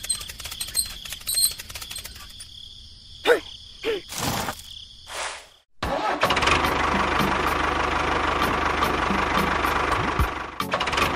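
Engine sound of a mini toy tractor starting abruptly about six seconds in and then running steadily, with a low chugging and a regular light ticking. Before it, only a few scattered knocks and scrapes.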